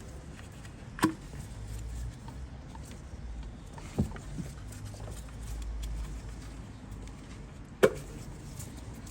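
Ignition leads being pulled off the spark plugs of a Ford Fiesta's engine one at a time: three sharp clicks a few seconds apart, over a low steady rumble.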